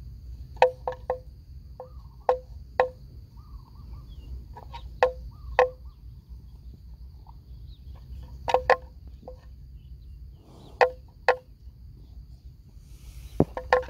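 Wooden bells on grazing water buffalo clonking irregularly, with hollow pitched knocks coming singly or two or three close together every second or two. A steady, thin, high insect drone runs underneath.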